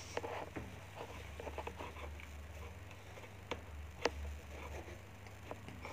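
Faint room noise with scattered small clicks and ticks over a low steady hum, two sharper clicks about three and a half and four seconds in.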